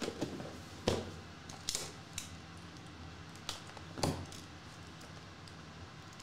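Hands handling a cardboard trading-card box and its metal tin: a handful of separate sharp taps and clicks with brief scrapes, about one a second, the loudest about four seconds in, as a small knife is brought to the box and starts cutting its seal.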